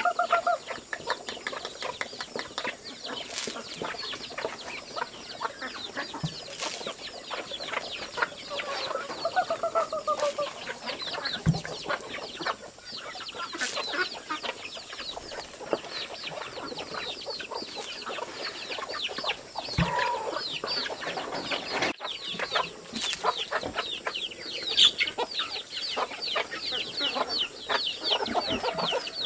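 Chickens clucking, with a dense stream of short, high, falling chirps throughout and a couple of longer calls about nine seconds in. A few short knocks are heard here and there.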